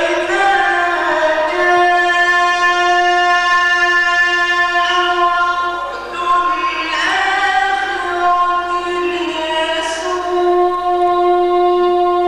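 A male Quran reciter chanting in the melodic mujawwad style, holding long, high notes with ornamented turns. The voice dips briefly about six seconds in and then carries on.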